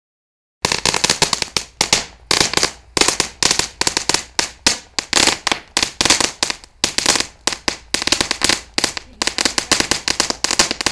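Crackling Thumbs of Fury, a 1.4G consumer ground firework, crackling: a dense, continuous rattle of sharp pops in rapid clusters, cutting in abruptly about half a second in.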